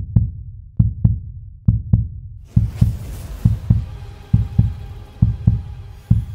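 Heartbeat sound effect: low double thumps repeating a little faster than once a second. A faint held tone comes in under it about halfway through.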